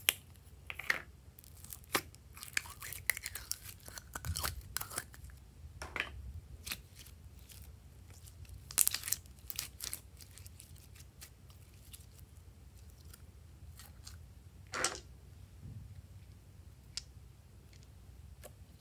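Glitter slime and its plastic cup handled close to the microphone: irregular clicks, crackles and sticky tearing sounds, densest in the first half and in a short burst about halfway, then a few single clicks.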